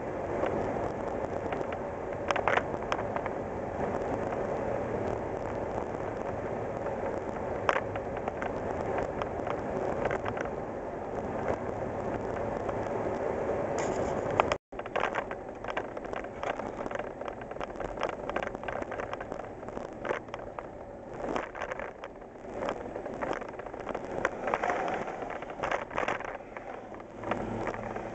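Inside the cab of a 1987 Ford Ranger pickup with a 2.9L Cologne V6 on the move: steady engine and road noise with scattered clicks and rattles. It cuts out for an instant about halfway through, and afterwards it is quieter and more uneven.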